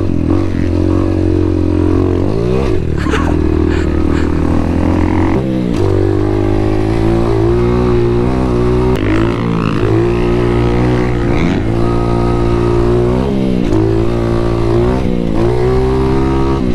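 Kayo 125cc dirt bike engine heard from on the bike, revving hard under way. Its pitch climbs, drops sharply and climbs again every couple of seconds as the rider works the throttle and gears.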